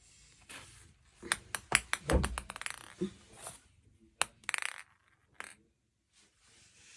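A cat's toy clattering and jingling as it is played with: a quick run of sharp clicks and clinks about a second in, then a brief jingle, and another click and jingle about four seconds in.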